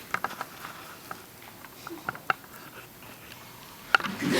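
Quiet room tone with scattered small clicks and taps, a sharper click about four seconds in, then audience noise starting to swell at the very end.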